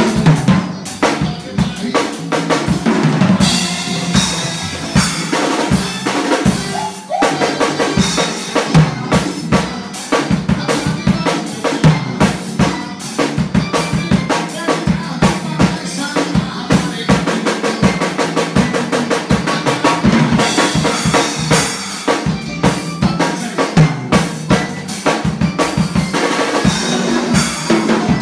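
A drum kit played hard and fast: dense, rapid strokes on bass drum and snare, with stretches of crashing cymbals.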